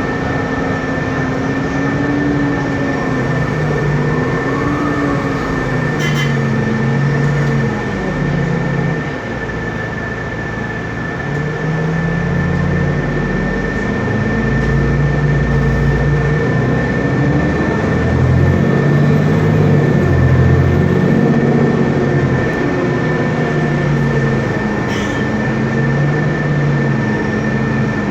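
Otokar Kent LF city bus's Cummins ISB diesel engine running under way, its note rising and falling several times as the bus accelerates and the ZF Ecolife automatic gearbox changes gear. A steady high whine runs throughout.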